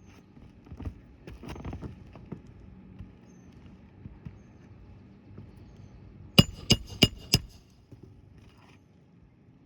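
Four quick, sharp hammer strikes on a roofing nail, about three a second and ringing metallically, while a replacement asphalt shingle is being fastened. They follow a couple of seconds of rustling and scraping.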